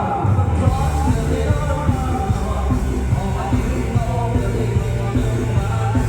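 Loud live band music with a steady bass and drum beat and a voice singing over it.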